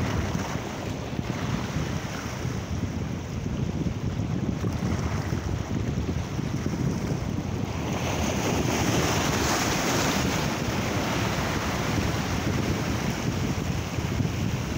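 Small waves washing and breaking against a rocky shore, with wind buffeting the microphone. About halfway through, a bigger wash of surf swells up for a couple of seconds, then eases.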